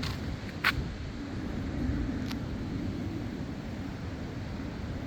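Hurricane wind gusting, with a steady low rumble of wind on the microphone. A few sharp ticks sound over it, the loudest under a second in.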